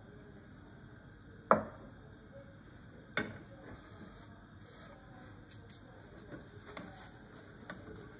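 Two sharp knocks of kitchenware against a saucepan, about a second and a half in and again about three seconds in. Faint ticks and light rubbing of a plastic spatula in the pan follow near the end.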